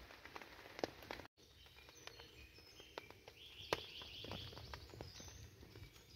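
Faint, scattered taps of water drops on the bivvy's tarp over a quiet background hiss, after a night of heavy rain.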